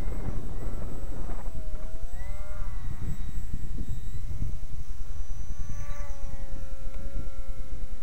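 Electric motor and propeller of a radio-controlled seaplane whining, the pitch dipping and rising with the throttle and rising again about five seconds in before holding steady. Heavy wind rumble on the microphone runs under it.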